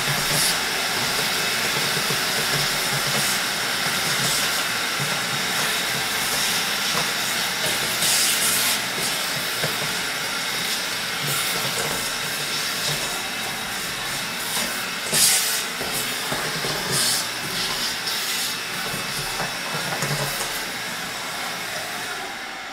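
Canister vacuum cleaner running steadily, its wand sucking plastic shavings out of freshly drilled holes in a plastic tote lid, with a few short louder rushes of air. It cuts off near the end.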